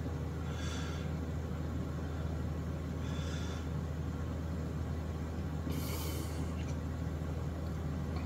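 A steady low hum throughout, with three short hissy rustles, the last and loudest about six seconds in, as wood glue is squeezed from a plastic bottle along a guitar neck's binding channel.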